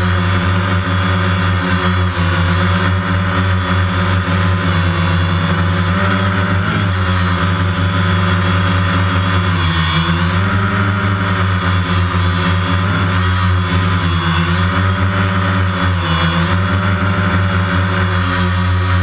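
Multirotor drone's motors and propellers humming steadily and loudly, the pitch dipping briefly and recovering several times as the throttle changes.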